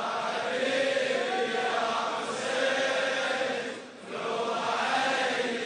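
A large crowd of mourners chanting a Shia latmiyya mourning refrain together, with a short break in the chant about four seconds in.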